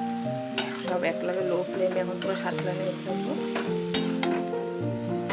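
Vegetables stir-frying and sizzling in a kadai, a metal spatula scraping and clinking against the pan a few times, over background music with a melody.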